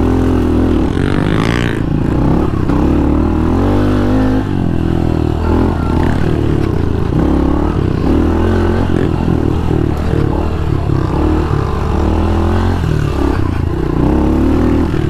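Honda CRF110 pit bike's small single-cylinder four-stroke engine running under throttle on a dirt trail, its pitch rising and falling as the rider opens and closes the throttle.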